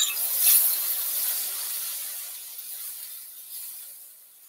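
Cauliflower rice sizzling in a hot cast-iron skillet as it is stirred, the hiss swelling about half a second in and then slowly dying away.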